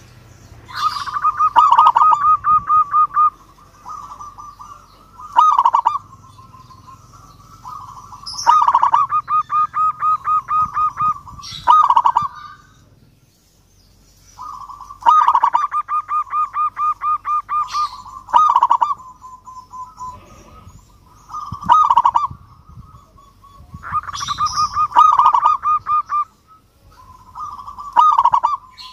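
Zebra dove (perkutut) singing its staccato cooing song. Short loud coos alternate with longer runs of rapid pulsed coo notes, and a new phrase starts every few seconds.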